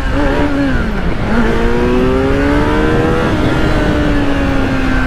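Superbike engine accelerating hard, its pitch dipping briefly about a second in as it shifts up, then climbing again and levelling off at speed, with wind rush on the helmet-camera microphone.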